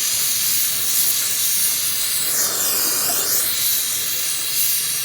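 Gas torch flame hissing steadily while silver brazing a broken motorcycle wheel hub; the hiss dips and rises briefly about halfway through.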